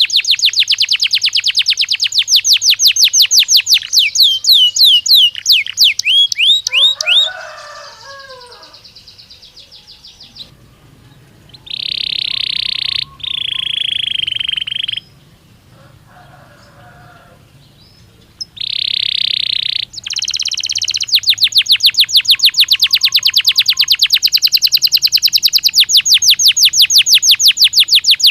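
Domestic canary song: a loud, fast trill of rapidly repeated high notes, then quieter, lower chattering notes. Several long, steady whistled tones follow, with pauses between them, and then another fast trill runs to the end.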